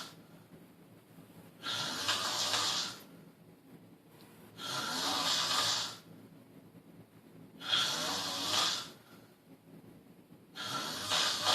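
A sleeping person snoring: four snores about three seconds apart, each lasting about a second, with quiet breathing between them.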